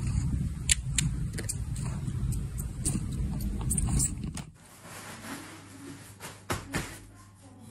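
Domestic cat purring, a loud steady low rumble, with sharp wet clicks as it sucks on its own paw. The purr cuts off abruptly about four and a half seconds in, leaving much quieter soft rustling and a few clicks.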